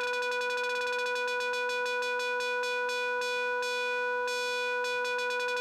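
Korg Minilogue Bass analogue synthesizer holding one steady note while its LFO makes the tone flutter quickly and evenly. The pitch stays put while the brightness pulses several times a second, shifting a little as the LFO knobs are turned.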